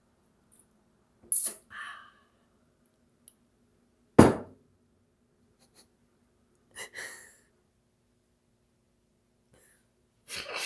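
A man's short breathy exhalations after a sip of tea, with one sudden loud burst about four seconds in, over a faint steady hum.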